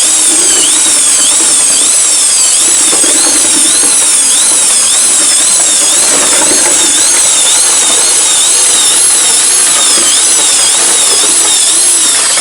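Ryu RED 16 RE electric mixer drill running with its paddle stirring sand-cement mortar in a bucket. The motor's high whine climbs and drops back about twice a second, over a rough churning of the mix.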